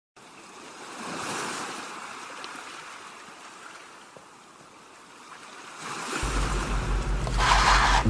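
Ocean surf washing in: a swell that rises and fades, then a second swell building. Background music with a low bass line comes in about six seconds in.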